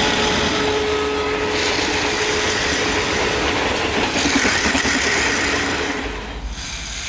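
Battery-powered toy passenger train running on plastic track: a steady whirring rattle of its motor and wheels, with a thin held tone underneath that fades out about six seconds in.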